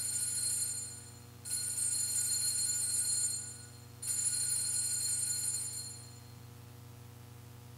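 Altar bells rung three times as the consecrated host is elevated at Mass, each ring a bright, high ringing lasting a second or two, with short pauses between; the last ring fades out about six seconds in. A faint steady electrical hum lies underneath.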